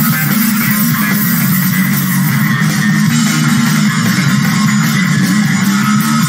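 Live rock music from a bass-and-drums duo: electric bass playing a riff over a full drum kit, loud and steady, with no singing.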